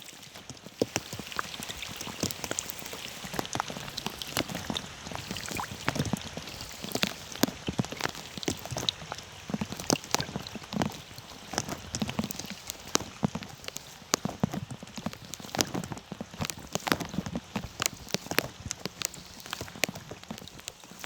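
Rain falling on open water: many separate drops plink and splash at the surface, close together and irregular, over a steady patter.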